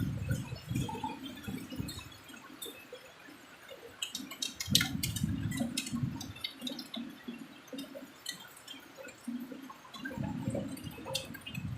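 Rainstorm water splashing and gurgling in irregular surges, with scattered drips and taps.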